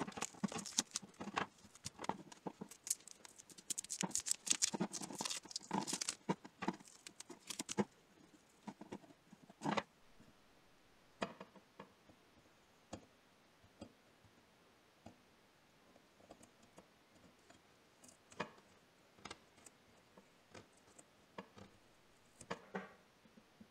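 Close handling of an old pair of steel pincers: a dense run of crackles and rustles for about the first eight seconds, then scattered light clicks and taps.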